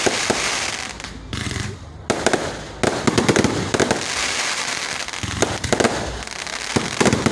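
Fireworks going off: many sharp bangs and crackling bursts in quick succession, easing off briefly about a second and a half in before picking up again.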